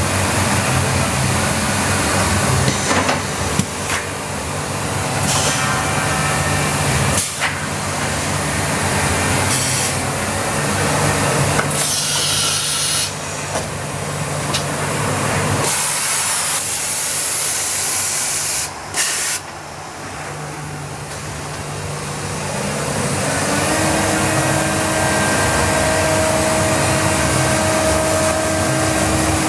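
Biesse Rover 23 CNC machining center running: a steady machine hum with several loud hissing bursts around the middle. A steady whine comes in near the end.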